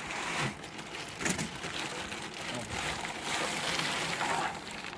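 Packaging rustling and being handled, with an uneven hiss and a few light knocks, as a MIDI keyboard is lifted out of its box.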